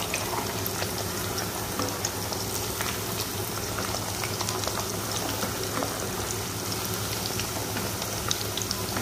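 Mutton kofta balls deep-frying in a pot of hot oil: a steady bubbling sizzle dotted with many small crackles and pops.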